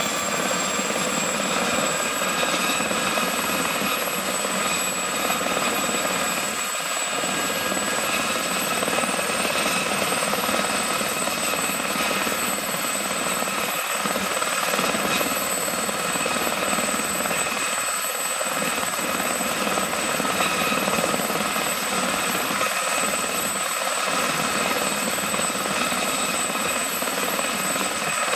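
Aerospatiale SA341G Gazelle helicopter running on the ground with its rotor turning: a steady high whine from its Astazou IIIA turboshaft engine over the noise of the rotor, the pitch rising slightly in the first couple of seconds and then holding steady.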